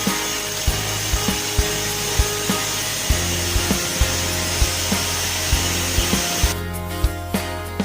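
Background music with a steady beat and a held bass line that changes note about three seconds in, over a dense hissing noise that stops suddenly about six and a half seconds in.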